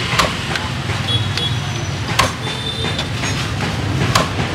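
Street traffic rumbles steadily, and a few sharp knocks cut through it, the loudest about two seconds in.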